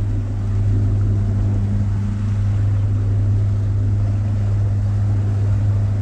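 Inboard engine of a passenger tour launch running steadily, a low, even drone.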